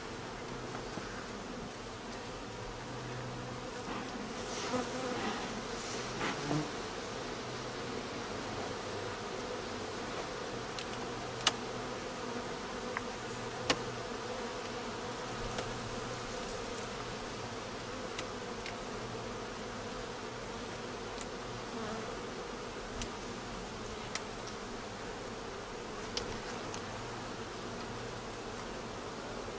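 Honeybee colony buzzing steadily at an open hive, a continuous hum of many bees. A few sharp clicks break in, the loudest two about 11 and 14 seconds in.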